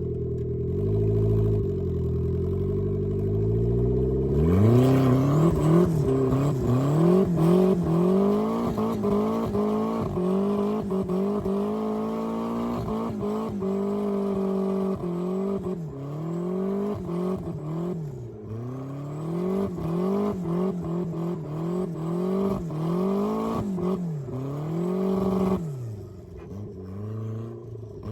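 Turbocharged Mazda Miata's four-cylinder engine under hard driving. It runs low and even at first, then from about four seconds in it revs up and falls back over and over, every second or two.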